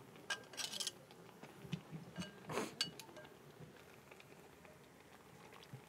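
Metal tongs and a ladle clinking and scraping against a large ceramic pot and a bowl while turkey soup is served. A few faint clinks and short scrapes come in the first three seconds, then it goes quieter.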